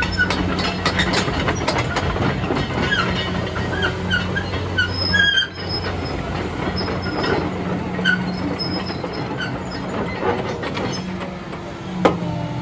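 Liebherr R954C HD crawler excavator on the move: its diesel engine runs steadily while the steel track chains give repeated short squeaks and clanks. A sharper clank comes near the end.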